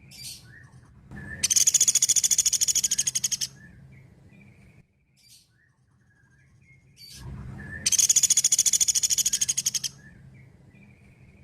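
Pelatuk beras (a small woodpecker) calling: two long, high, fast trills of rapid evenly spaced notes, each about two seconds, with a few short faint calls in between.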